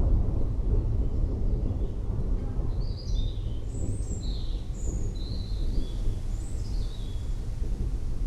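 Distant thunder rumbling, dying away at the start into a steady low rumble, while a bird gives a string of short high chirps through the middle.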